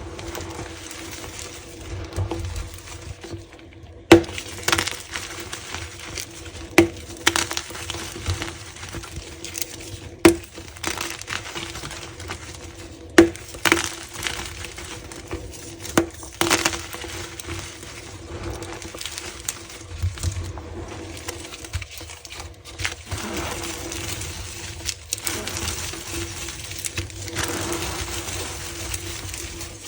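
Close-up handling of crinkly material: rustling and crinkling, broken by sharp single snaps or clicks every few seconds.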